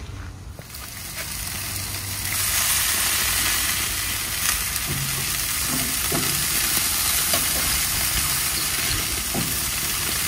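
Food sizzling in a cooking pan or on a grill: a steady, dense hiss that starts about a second in and grows fuller at about two seconds.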